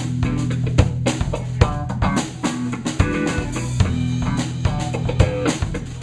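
Music with a drum kit beat, steady drum hits over a bass line.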